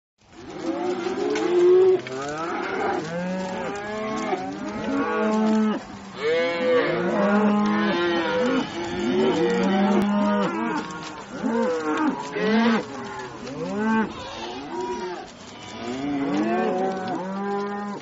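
A herd of cattle mooing, many long calls overlapping one another without a break.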